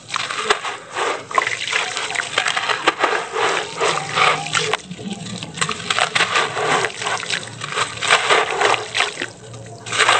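Wet sand-cement block crushed and crumbled by hand over a basin of water: gritty crunching and crackling as the block breaks, with crumbs and sand falling and splashing into the water.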